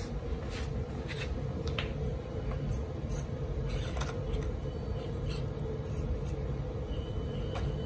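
Axial SCX24 micro rock crawler crawling over wooden blocks and dowels: a steady whine from its small electric motor and gears, with scattered clicks and knocks of the tyres and chassis against the wood.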